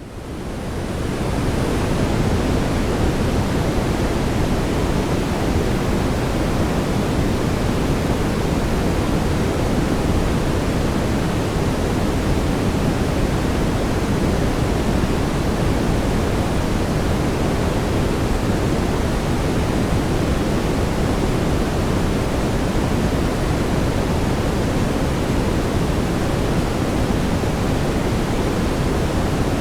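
Synthetic brown noise: a steady, even rumbling hiss weighted toward the low end, fading in over the first two seconds and then holding level.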